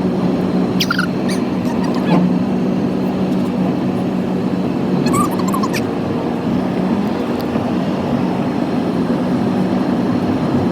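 Steady engine and road drone heard from inside a moving car, with a few brief high chirps and ticks.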